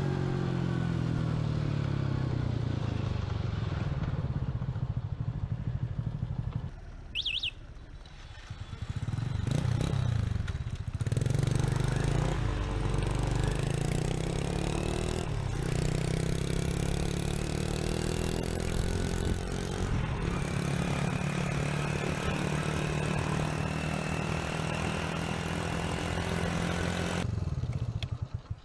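Honda Dream motorbike's single-cylinder four-stroke petrol engine running as the bike is ridden, its pitch rising and falling with throttle and gear changes, with road and wind noise. There is a short electronic beep about seven seconds in.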